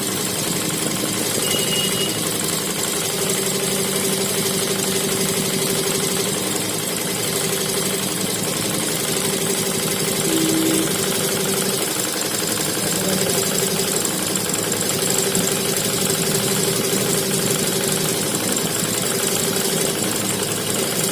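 A 12-needle high-speed embroidery machine running steadily as it stitches, a continuous mechanical hum.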